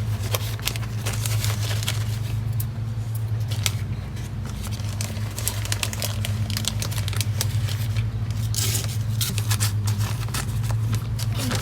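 Potting soil being scooped and poured into a plastic-lined box, with scattered rustling, crinkling and scraping that is busiest about two-thirds of the way through. A steady low hum runs underneath.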